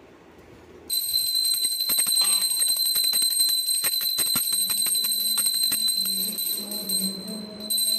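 Puja hand bell (ghanti) rung continuously by shaking it: a steady high ring over fast clapper strikes, starting suddenly about a second in and dipping briefly just before the end.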